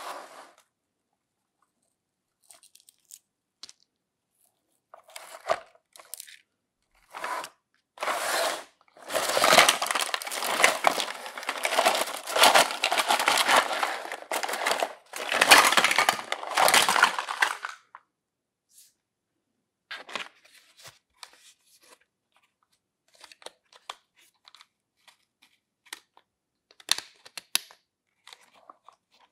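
Plastic mesh net bag rustling and being torn open around hard plastic toy kitchen pieces, with a long stretch of loud tearing and crinkling in the middle, then scattered light clicks and rustles as the plastic pieces are handled.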